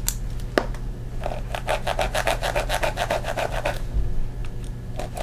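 A pencil scraped rapidly back and forth against a sealed cardboard box, trying to cut it open, in a quick run of strokes that stops near the end. There is a sharp click about half a second in.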